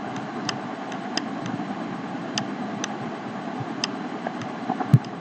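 Steady background hiss of room noise with scattered faint clicks, roughly one a second, from a computer mouse as handwriting is drawn on screen. A sharper click comes near the end.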